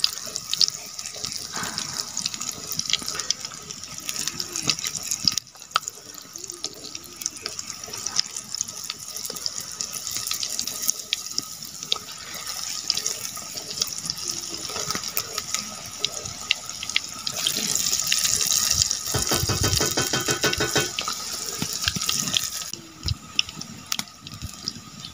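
Battered cauliflower pakoras deep-frying in hot oil in an iron karahi. The oil sizzles steadily with small crackles, and the sizzle grows louder for several seconds in the second half.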